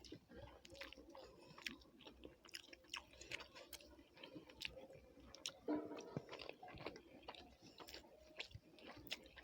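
Faint close-up chewing: a person eating a rice meal, with many small irregular wet mouth clicks.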